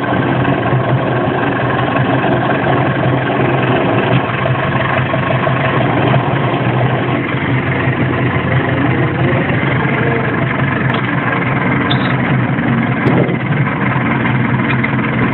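Massey Ferguson 294S tractor's diesel engine running steadily while the tractor drives at low speed, heard from inside the cab.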